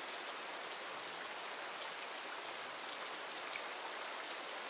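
Steady rain falling in a forest, an even hiss of drops with faint scattered patters.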